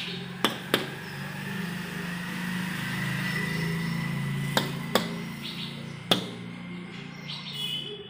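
Several sharp taps, two pairs about a third of a second apart and a single one later, over a low steady hum.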